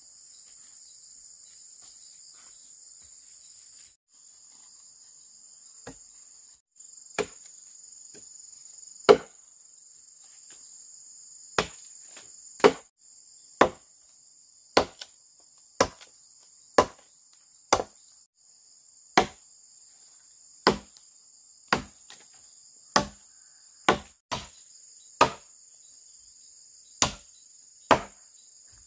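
Repeated sharp tool strikes on wood, chopping or hammering at about one blow a second, starting about six seconds in. Under them is a steady high chirring of crickets.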